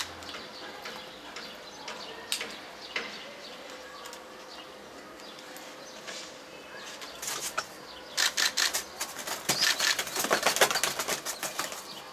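Pigeons flapping their wings in quick fluttering runs, thickest over the last four seconds, with a few scattered clicks and rustles before that.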